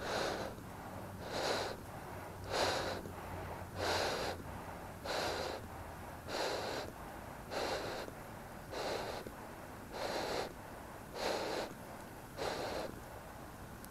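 A person breathing hard and evenly close to the microphone, about one heavy breath every second and a quarter, from the strain of holding up a heavy crucible of molten cast iron during the pour.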